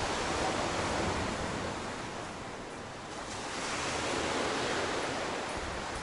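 Sea surf: small waves washing against a concrete seawall, a steady hiss that eases about halfway through and swells again.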